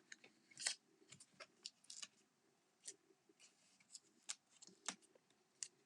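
Faint, scattered clicks and rustles of paper card pieces and craft supplies being handled on a desk.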